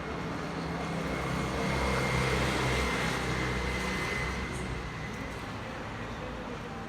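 A road vehicle going past, its engine and tyre noise rising to a peak a couple of seconds in and then fading.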